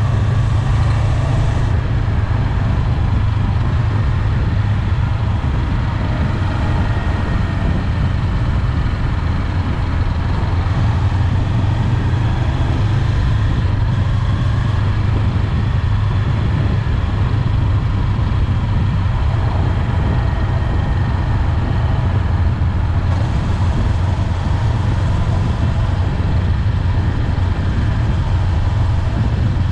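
Honda 400X motorcycle's parallel-twin engine running at a steady cruise, a low even drone with wind noise over it.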